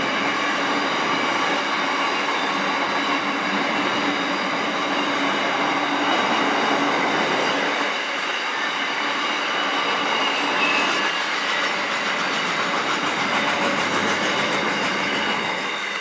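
Container freight train passing, its wagons' steel wheels rolling steadily over the rails with clickety-clack, and a few thin steady ringing tones from the wheels running through the noise.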